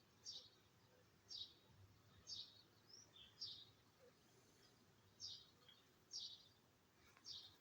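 A small bird chirping faintly, short high falling chirps repeated about once a second against near-silent background.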